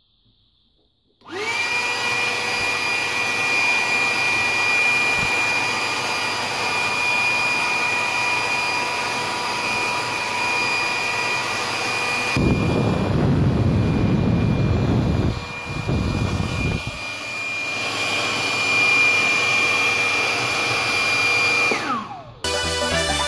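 Homemade hand dryer's small electric motor and fan switched on: it spins up with a rising whine, then runs with a steady high whine and rush of air. Midway a deeper rush comes in for several seconds as hands are held in the airstream, and near the end it is switched off and the whine falls away as the motor spins down.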